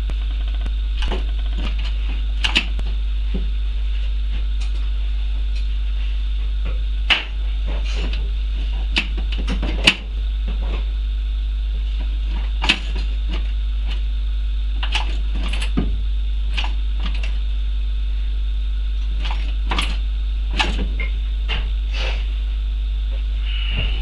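A steady low hum with scattered knocks and clicks from hand work on the car's accelerator pedal and throttle linkage, the sharpest about 7, 10 and 13 seconds in.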